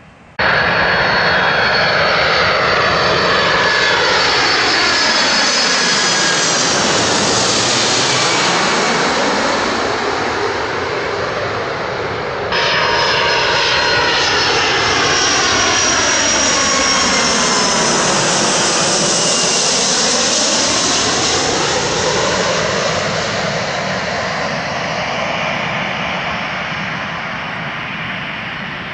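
Jet airliners passing low overhead on their landing approach: loud engine noise with a high fan whine, the tone sweeping down and back up as each goes over. The sound starts abruptly just after the start and jumps to a second pass about twelve seconds in, easing off toward the end.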